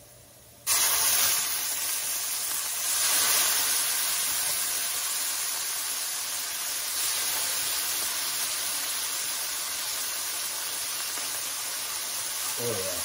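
Bourbon poured into a hot nonstick skillet of oil and browned garlic, deglazing the pan: a sudden loud hiss of sizzling and steam bursts up less than a second in, swells again a couple of seconds later, then settles into a steady sizzle.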